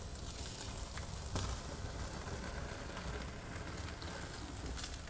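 Wood fire crackling in a fireplace with a steak's fat sizzling and flaring in the flames, a steady hiss with a couple of sharp pops.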